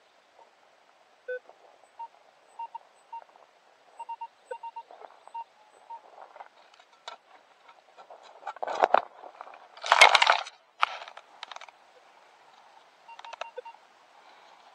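Metal detector giving a string of short beeps, mostly at one pitch with a few lower ones. Midway through comes a burst of loud scraping and rustling close to the microphone, loudest about ten seconds in.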